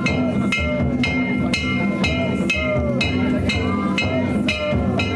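Danjiri float festival music: a taiko drum and metal gongs beaten in a steady, unbroken rhythm, about two strokes a second.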